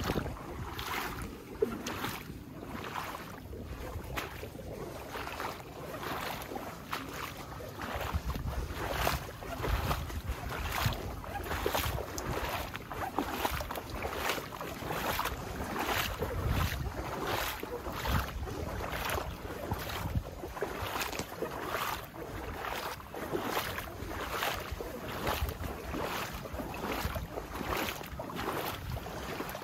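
Footsteps sloshing through shallow floodwater at a steady walking pace, with wind buffeting the microphone.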